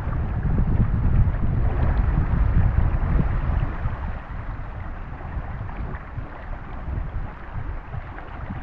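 River water rushing over rocks, a steady noise, with wind buffeting the microphone in a low rumble that eases about halfway through.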